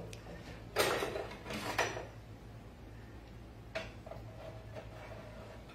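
Cookware being handled on a stovetop: a pan and a metal utensil give two short scraping clatters in the first two seconds, then a single sharp clank near the middle.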